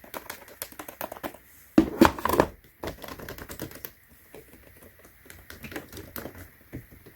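Keys of a wireless split ergonomic PC keyboard being pressed in quick irregular runs, a patter of key clicks, with a louder flurry about two seconds in.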